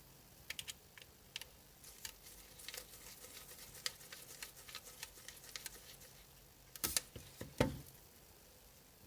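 Light, irregular clicks and ticks of small tools on an iPhone 6s display assembly, a precision screwdriver working the tiny screws of the metal bracket, with a few louder knocks about seven seconds in.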